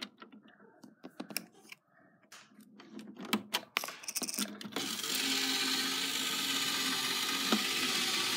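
Toy mini claw machine: a few light clicks and knocks from the claw and controls, then from about five seconds in its small electric motor whirs steadily as the claw runs.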